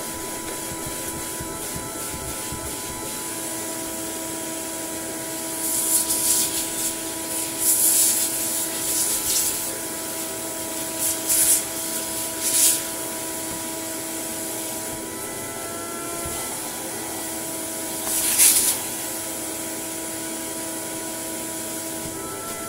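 Tub vacuum cleaner running with a steady motor whine while its crevice nozzle is rubbed over dusty foam and plastic vacuum-cleaner parts. Loud hissing rushes come as it sucks up dust, several times in the middle of the stretch and once more later on.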